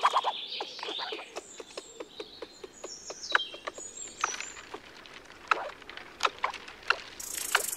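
American red squirrel chewing and gnawing food, making irregular sharp clicks and crunches several times a second, with small birds chirping in the background. Near the end a high, steady buzzing starts.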